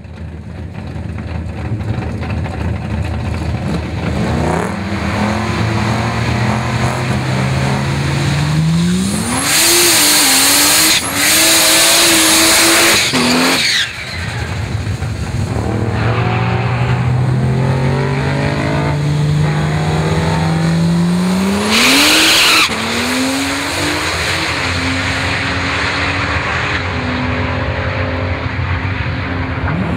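Turbocharged four-litre straight-six of a Ford FPV Falcon FG F6 drag car revving up while the rear tyres spin and squeal in a burnout, the tyre noise loudest for about four seconds a third of the way in. The engine then climbs in pitch again, gives a short loud burst as the car launches, and runs on with its pitch stepping through gear changes of the three-speed automatic.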